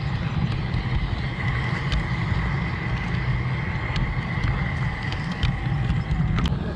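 LGB G-scale garden railway train running, heard from a camera riding on it. A steady high whine from the locomotive's motor and gears sits over a low rumble, with a few light clicks as the wheels pass rail joints.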